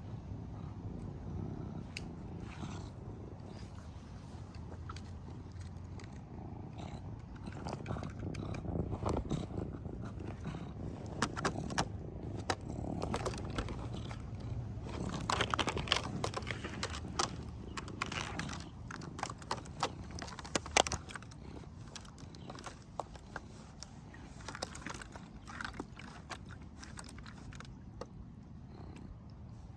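Serval cat at play: rustling and scattered sharp clicks and taps over a steady low rumble, busiest in the middle stretch and thinning out near the end.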